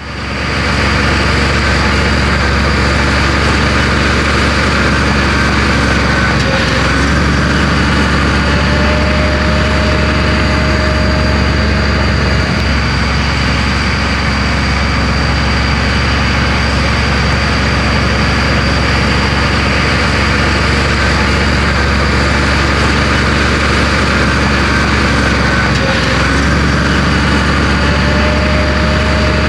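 Heavy earthmoving machine's diesel engine running steadily under load, with a constant high whine over it. Short whines rise and fall about a quarter of the way in and again near the end.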